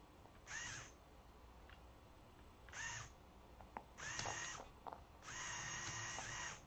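LEGO Mindstorms EV3 servo motor whining in four short runs, the last and longest about a second and a half, as the robot's arm moves to drop a food pellet.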